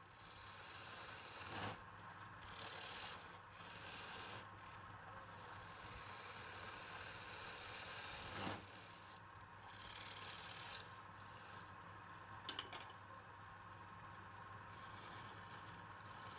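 Wood being scraped and rubbed over a steady low motor hum, with a few short sharp scrapes.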